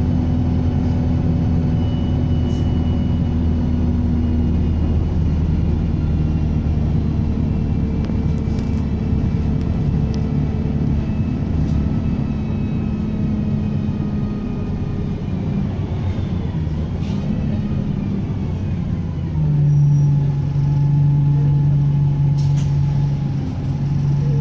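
Bus diesel engine running under way, with a high turbocharger whistle gliding up and down over the engine note. About 19 seconds in the engine drops to a steady idle.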